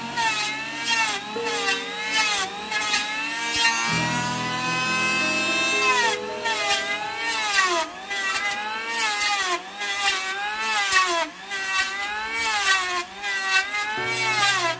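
Electric hand planer running as it shaves a hardwood board. Its motor whine dips in pitch each time the blade bites into the wood and rises again as the cut eases, over and over in quick repeated passes.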